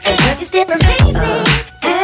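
Background music: a hip hop track with a heavy beat and a wavering vocal line.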